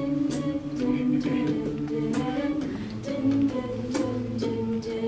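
A cappella group singing wordless backing harmonies: several voices hold sustained chords that shift pitch every second or so. Sharp vocal-percussion hits keep a beat over them.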